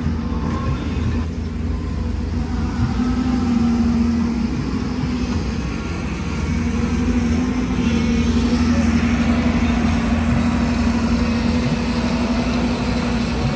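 Heavy diesel engine running steadily: a constant hum over a deep rumble, growing a little louder about seven seconds in.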